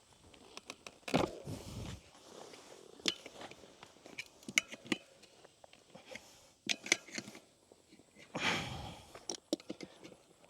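Metal tire spoons clicking, knocking and scraping against the rim and rubber as a motorcycle tire bead is levered onto a spoked wheel, with two longer, louder rasping noises about a second in and again near the end.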